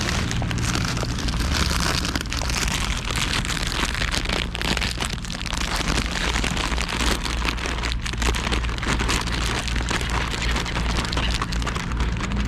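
Steady rain: a dense crackling patter over a low rumble.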